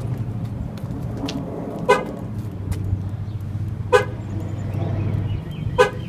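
Pickup truck's horn giving short chirps as the key fob remote is pressed, three times about two seconds apart, over a steady low hum.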